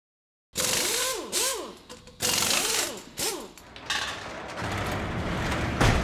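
Workshop sound effects for an intro: four short power-tool whirs, each rising and falling in pitch, then a steadier mechanical rattle that ends in a loud hit just before the end.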